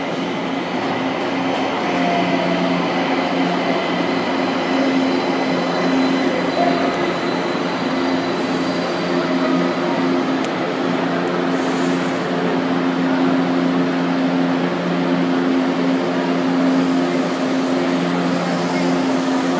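São Paulo Metro Line 2 train pulling into the platform and standing with a steady electric hum over broad running noise. There is a faint brief squeal a couple of seconds in, and short hissing bursts about halfway through.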